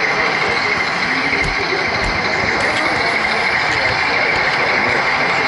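Steady running noise of an H0-scale model train's electric motor, gears and wheels on the rails, picked up close by a camera riding on the train, with a high steady whine in it.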